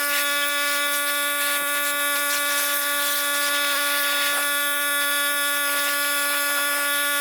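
Small electric motor running at a steady, constant-pitch whine, with a few light knocks over it.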